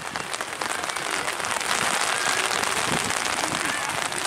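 Steady rain falling, a dense run of small drop impacts close to the microphone.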